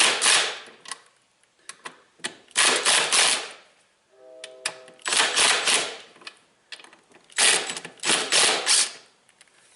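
Power tool, likely an impact driver, run in four short rattling bursts to work a fastener loose on the washer's underside, eased on a little at a time so the loose-fitting socket does not jam.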